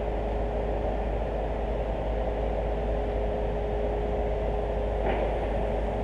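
Steady low rumble with a constant hum of crane machinery running, with a short brighter sound about five seconds in.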